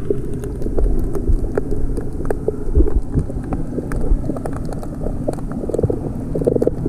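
Underwater sound picked up by a camera held by a snorkeler: a steady muffled low rumble with many small clicks and crackles scattered through it.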